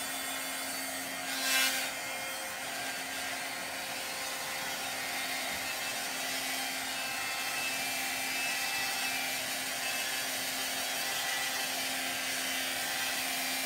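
Handheld hot-air heat tool running steadily, a motor hum under rushing air, drying freshly applied chalk paste. It is briefly louder about a second and a half in.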